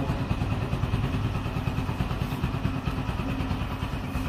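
Motorcycle engine idling steadily with an even, rapid pulse.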